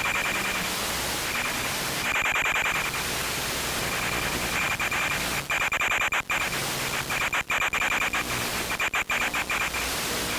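Steady static hiss with a high, steady whine running through it, from an FPV plane's video-link recording. It cuts out briefly many times, mostly in the second half.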